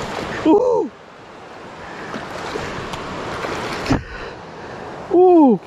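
Water noise that swells for about four seconds and cuts off abruptly with a knock, as a hooked largemouth bass is fought at the kayak's side. Two short excited whoops from the angler, one about half a second in and one near the end, are the loudest sounds.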